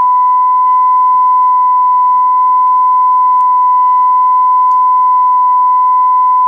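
Steady 1000 Hz test tone from a test record's right-channel band, played on a Dual CS 503-1 turntable through a loudspeaker, with a faint second tone an octave higher. Its pitch shows the platter speed; it is being used to set the turntable's 33 RPM speed, and the reading sits at about 1002 Hz.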